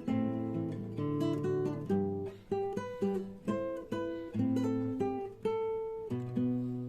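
Acoustic guitar playing a melody of picked notes over bass notes, each note struck sharply and ringing down before the next.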